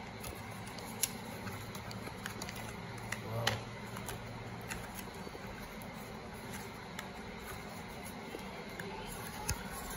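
Cardboard watch box and its packaging insert being handled as a smartwatch is taken out: scattered light clicks and rustles, with a low steady hum through the first half.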